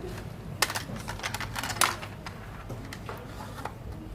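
A run of sharp clicks and taps from hands working on a laptop's parts and tools, loudest about half a second and two seconds in, then sparser.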